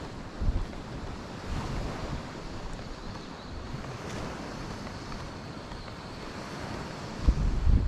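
Wind blowing across the microphone: a steady rush, with low buffeting gusts about half a second in and again near the end.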